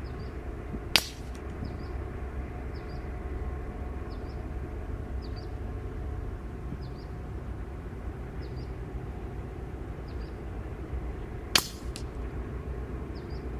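A .22 P15 air rifle fires two shots, each a single sharp crack, about ten and a half seconds apart.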